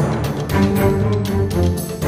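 Background theme music with low drum hits and sustained pitched notes.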